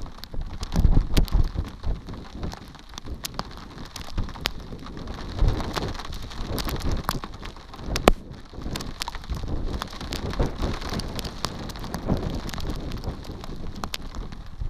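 Rain falling, with many sharp drops striking close to the microphone over a steady hiss, and low rumbles swelling now and then.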